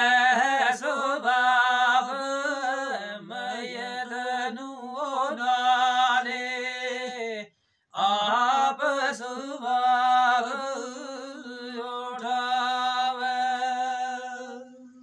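A man chanting Gojri devotional verse (kalam) solo and unaccompanied, in long held melodic lines. He breaks off for a breath about halfway through, then goes on, the last note dying away at the end.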